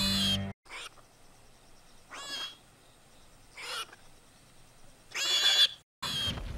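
Baby Tarbosaurus creature sound effect: a string of short, high-pitched squeaky calls, roughly one every second and a half, the loudest about five seconds in.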